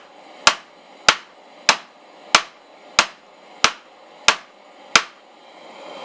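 Hand hammer striking hot 1/4-inch round steel on an anvil: eight evenly paced blows, about one and a half a second, each with a short metallic ring, stopping about five seconds in. The blows are drawing out the tip of a small J hook held half on, half off the anvil edge.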